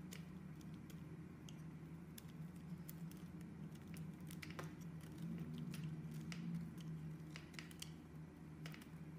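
Utility knife blade shaving curls off a bar of soap: a run of short, crisp scraping clicks at an irregular pace, over a faint low steady hum.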